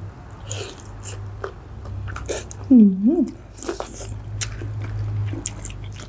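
Close-up chewing, biting and wet mouth clicks of people eating a seafood salad of shrimp, squid and rice noodles. About three seconds in comes a short hummed "mm" that rises and falls in pitch.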